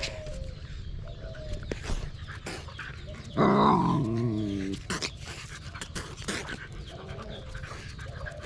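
A dog gives one loud call lasting just over a second, about three and a half seconds in, its pitch stepping down, amid scattered light taps and scuffling clicks from the animals' play-fight.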